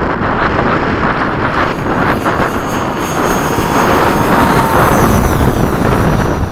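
90 mm electric ducted fan of an RC F/A-18 jet, a 12-blade fan driven by a 4082 inrunner motor, running at high power. It makes a steady rushing sound with a faint thin high whine, swelling a little partway through.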